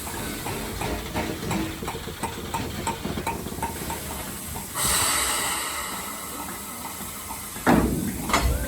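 USATC S160 steam locomotive easing up to its carriages: light irregular knocking, then a sudden loud hiss of steam about five seconds in that slowly fades, and two sharp metallic clanks near the end as it buffers up to the train.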